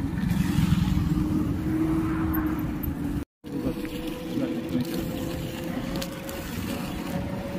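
A motor vehicle running along a road: a steady engine hum over rumbling road noise. The sound drops out completely for a moment about three seconds in, then the hum resumes at a slightly higher pitch.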